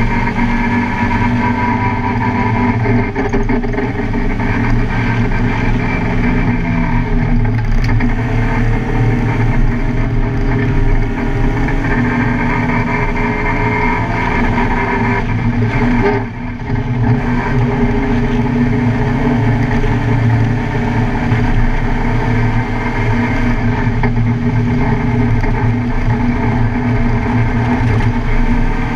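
Car engine running hard on a race track, a steady drone whose pitch shifts a little, with a brief drop in level a little past halfway.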